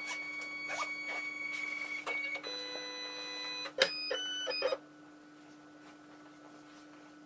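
Electronic intro jingle: a run of held synthesizer tones that change pitch a few times, with a couple of sharp clicks, ending about five seconds in. A faint steady hum remains after it.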